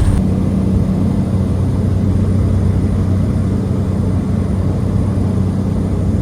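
Light propeller plane's engine and propeller at takeoff power, a steady droning hum heard from inside the cabin during the takeoff run and climb.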